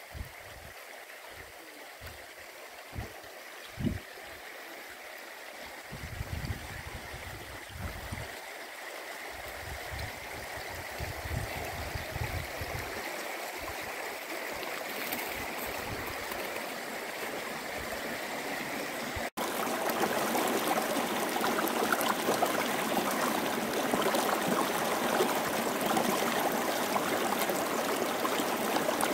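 Shallow stream running over stones, growing louder, then, after a sudden cut about two-thirds of the way through, faster water rushing close by around boulders. Low thumps and rumbles come and go in the first half.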